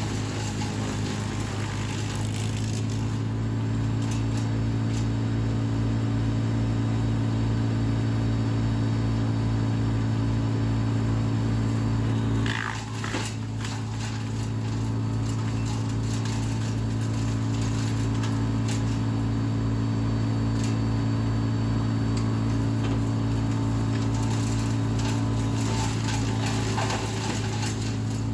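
Vermeer BC700XL wood chipper running steadily, a low even hum with a regular low pulsing, dipping briefly with a short knock about halfway through.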